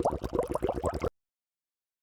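A rapid run of short plopping clicks, about ten a second, that cuts off suddenly about a second in.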